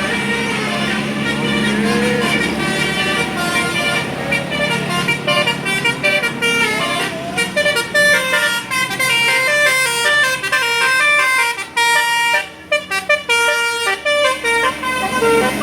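Bus telolet horn, a Basuri multi-trumpet air horn, playing a fast tune of short stepped notes, with a steady low hum underneath.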